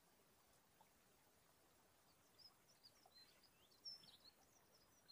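Near silence with a small bird chirping faintly: a string of short, high chirps starting about two seconds in.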